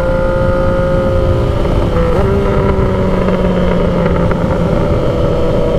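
2016 Yamaha XSR900's 847 cc inline-three engine, fitted with an aftermarket Mavericks muffler, pulling steadily under way, with wind noise. About two seconds in the engine note dips briefly and settles at a new pitch, as with a gear change or throttle change.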